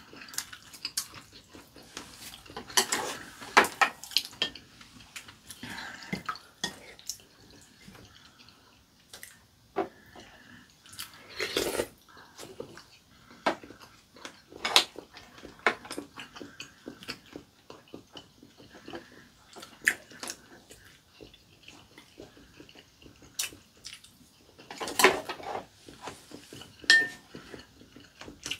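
Wooden chopsticks and spoons clicking irregularly against ceramic bowls and plates while two people eat soup, with short bursts of slurping and eating noises.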